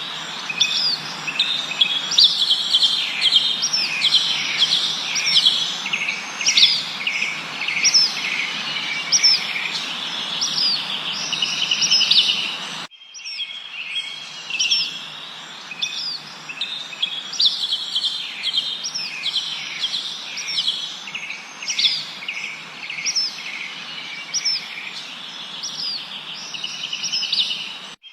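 Many songbirds chirping and trilling in quick, overlapping calls over a steady background hiss. About halfway through, the sound drops out for a moment and the same stretch of birdsong starts over, as a loop.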